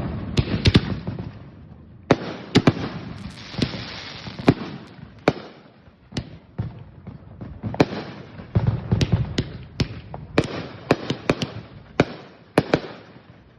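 Aerial fireworks going off in quick succession: many sharp bangs at irregular spacing, with crackling between them.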